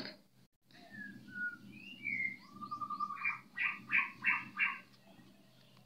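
Birds chirping: a few short, separate whistled notes, then a quick run of about five chirps.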